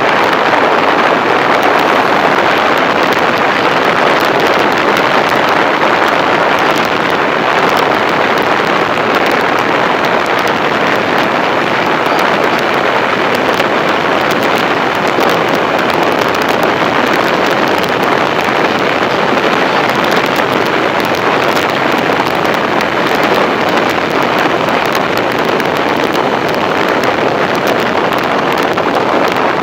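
Loud, steady wind noise on the microphone of a moving motorcycle, air rushing over it and drowning out the engine and road.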